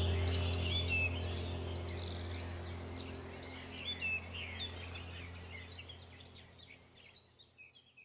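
Small birds chirping and twittering in a quick, overlapping jumble over a steady low hum, everything fading out gradually toward the end.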